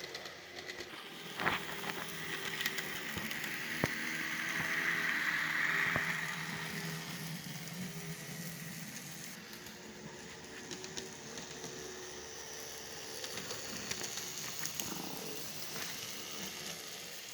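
EMD SD9 diesel locomotive with a 16-cylinder 567 engine, running as it hauls a train: a steady engine hum with a hiss that swells about five seconds in, and scattered sharp clicks.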